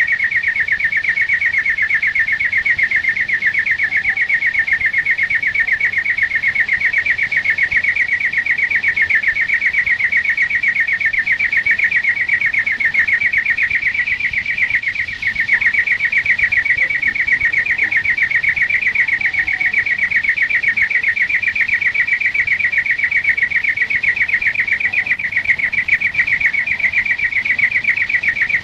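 European greenfinch singing one long, unbroken, rapid trill on a steady pitch, with a brief falter about fifteen seconds in.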